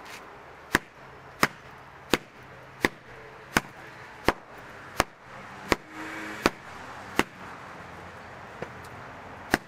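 Carpet beater whacking a cushion on a wooden table in a steady rhythm, about three sharp whacks every two seconds, with a short pause near the end before the beating picks up again.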